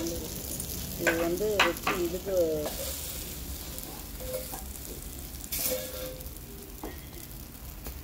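Food sizzling in a hot pan while it is stirred. A short wavering tone sounds between about one and three seconds in.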